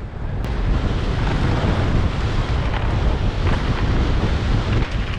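Wind rushing over the microphone of a helmet-mounted GoPro on a fast downhill mountain-bike run, a steady rumbling roar with the clatter of the ride mixed in.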